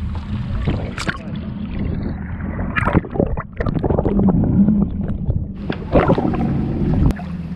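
Boat engine running with a low steady drone under a wash of water and wind noise, broken by a few sharp knocks.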